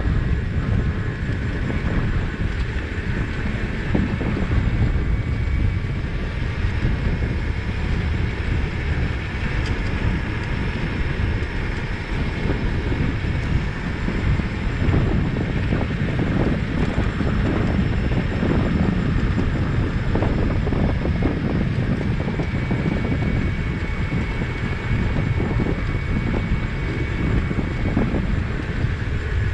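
Steady wind rumble on the microphone of a riding bicycle, mixed with tyre and road noise.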